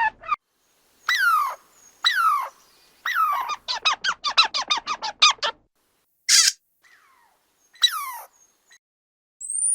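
Squirrel calling: three separate calls that each fall in pitch, then a quick run of about a dozen short calls. After that comes a brief noisy burst, another falling call, and a short high rising whistle at the end.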